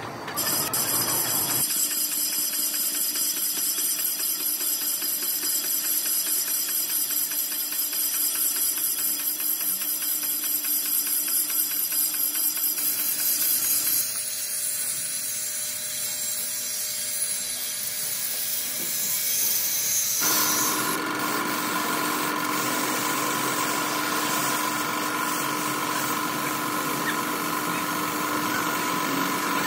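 A run of workshop tool sounds that change abruptly several times: a power tool running steadily for most of the first half, then a hand-held angle grinder working a cast-iron brake drum. From about twenty seconds in comes the hiss of a paint spray gun over a steady machine hum.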